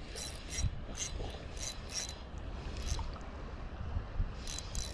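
Ultralight spinning reel, a Tsurinoya Whirlwing 1000, working against a hooked fish: irregular bursts of high ratcheting clicks, several to the second, then a gap and a fresh run of clicks near the end, over a steady low rumble.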